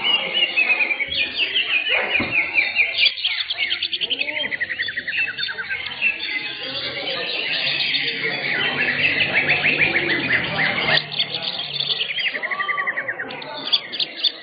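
Many green leafbirds (cucak hijau) singing at once, a dense, continuous chorus of rapid chattering trills and whistles overlapping one another.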